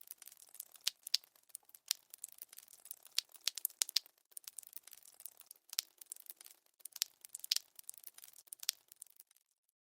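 Bleeding sound effect: a scatter of small wet clicks, drips and crackles at an uneven pace, several a second, stopping shortly before the end.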